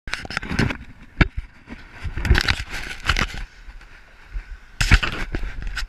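Handling noise on an action camera: rubbing and rustling against the housing, with sharp knocks, the loudest about a second in and again near five seconds in.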